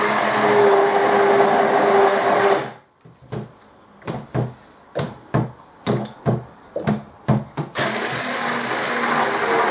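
Stick blender whizzing cold process soap batter, the oils and buttermilk lye being blended until they come together. It runs steadily for about three seconds and stops, then comes a run of knocks, about two a second, as the blender head is stirred around and bumps the bowl with the motor off; the motor starts again near the end.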